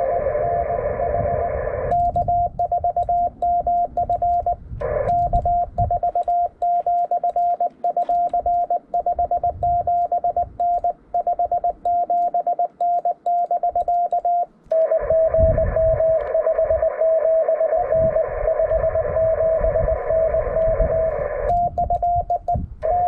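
Morse code (CW) from a ham radio: a single steady beep keyed in dots and dashes. Through the middle it is the clean keyed sidetone of the operator sending. At the start, and again from about fifteen seconds in, it comes through with band hiss as received signals from stations in a pileup.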